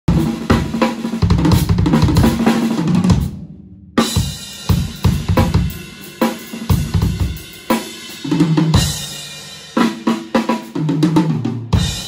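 Pearl drum kit played live: fast fills and grooves across snare, toms and bass drum with hi-hat and cymbal hits. The playing breaks off briefly about three seconds in, resumes, and ends on a final hit that rings out.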